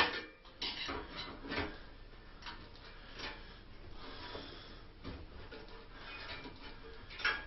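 Heavy shears cutting at a stiff part inside a UPS chassis: a string of irregular clicks, snips and scrapes, the loudest near the start and near the end.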